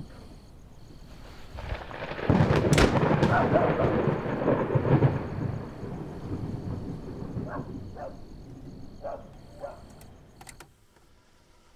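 A thunderclap about two seconds in, with a sharp crack, then a long rumble fading away over several seconds.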